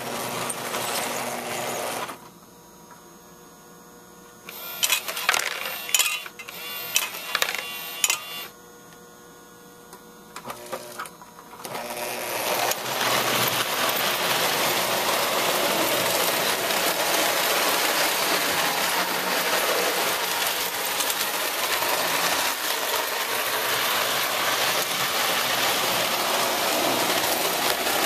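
Homemade toy-train dump station at work: its motor runs for about two seconds, then metal loads clink and clatter in a quick series of sharp hits between about five and eight seconds in. From about twelve seconds in, a toy electric train runs steadily on metal track, a continuous mechanical whir.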